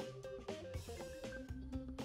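Background music with a steady beat, drums and guitar.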